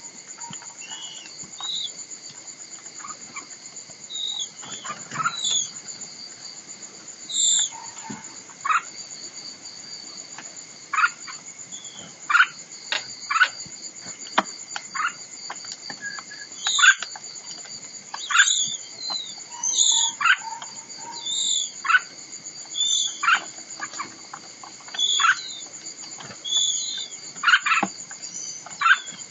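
Short, sharp bird calls repeated every second or two over a steady high insect trill.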